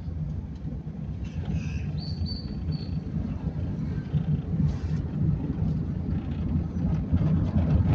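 Car driving at low speed, heard from inside the cabin: a steady low engine and road rumble that grows gradually louder.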